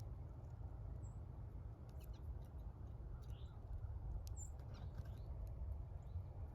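Small birds at a feeder giving a few faint, brief, very high chirps, with scattered light clicks over a steady low rumble.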